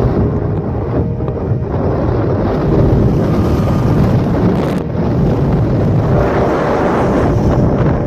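Wind buffeting the microphone from a moving vehicle, a steady low rumble.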